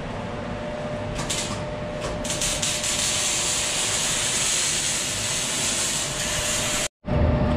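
Arc welding on a steel trailer frame: the arc hisses in a few short starts about a second in, then runs as a steady sizzling hiss that cuts off abruptly near the end.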